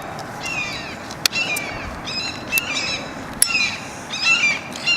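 Small birds chirping over and over in short downward-sweeping calls, with two sharp clicks, one about a second in and one past three seconds.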